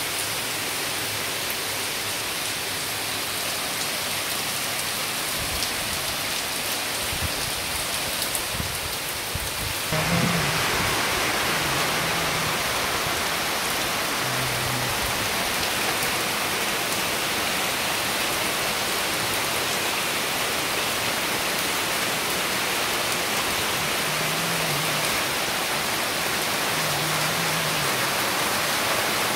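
Heavy rain falling steadily on a wet yard and foliage, a constant hiss that grows louder and brighter about ten seconds in.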